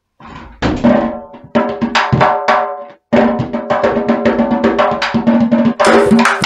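Candombe drums played together, each struck with a stick and a bare hand: rapid strokes with a ringing, pitched drum tone, breaking off for an instant about three seconds in.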